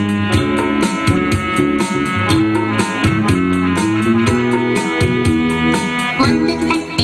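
Music with a steady beat, about four beats a second, over sustained instrumental notes; the music shifts near the end.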